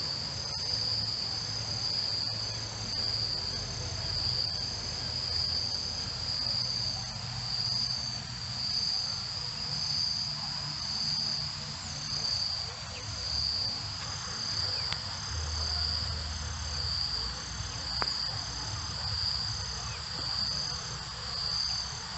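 Steady high-pitched chorus of insects, the crickets' kind, pulsing in gentle swells about every second and a half.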